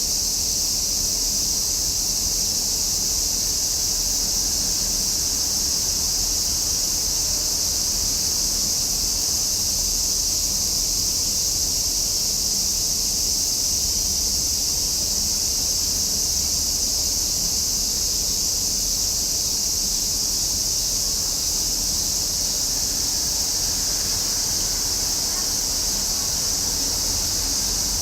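Cicadas in summer chorus: a steady, high, unbroken buzzing that holds at the same level without pulses or pauses.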